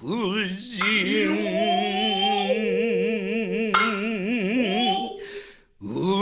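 Music: a voice singing long held notes with a wide, regular vibrato over a steady low drone. The music breaks off briefly near the end and then resumes.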